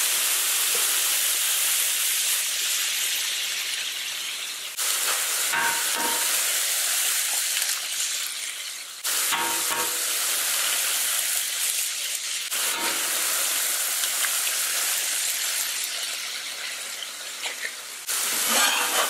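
Food frying on a flat-top gas griddle: a steady, loud sizzle that jumps in level at a few hard cuts, about five, nine and eighteen seconds in.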